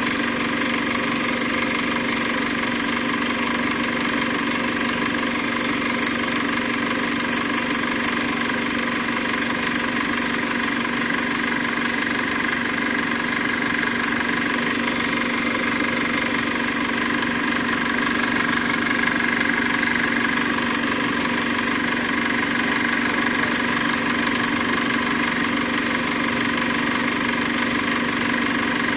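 Steady, unchanging mechanical running hum with a fine rapid flutter.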